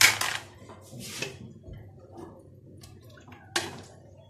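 Wet splashes as diced onion and tomato are dropped into a pot of broth: a loud splash at the start, another about a second in, and a third near the end, with small knocks between.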